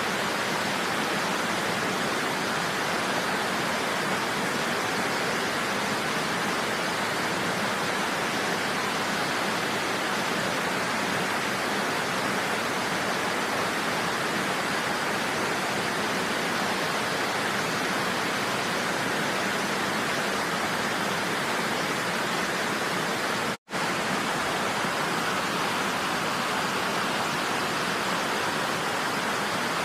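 Niagara Falls' water pouring and crashing in a steady, even rush. The sound cuts out completely for a split second about three-quarters of the way through, then returns unchanged.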